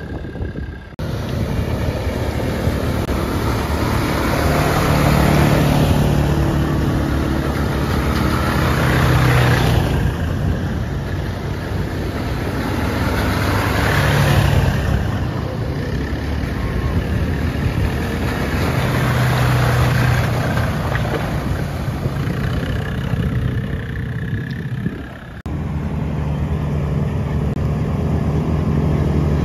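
Quad ATV engines running and revving as the bikes drive through a shallow river, with water spraying from the wheels in surges.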